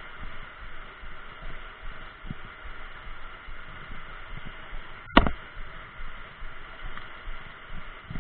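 Steady rush of water pouring over a river weir, with low gusty rumbles, and one sharp knock about five seconds in.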